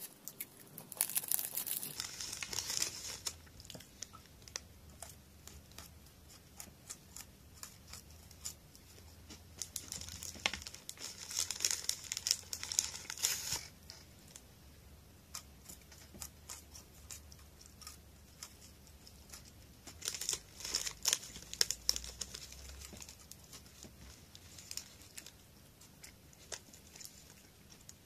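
Plastic snack wrapper crinkling and rustling in three bouts, near the start, about ten seconds in and about twenty seconds in, with scattered small handling clicks between.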